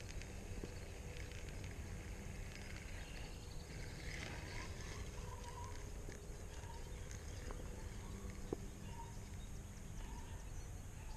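Faint farm ambience: short distant animal calls repeat from about four seconds in over a low steady hum.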